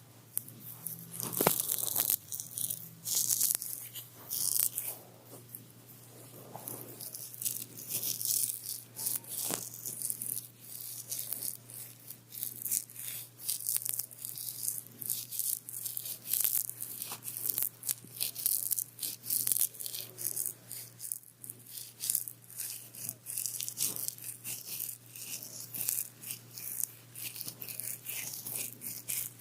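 Close-up crisp rattling and crackling: many small irregular clicks and rustles, most dense after the first second, over a steady low hum.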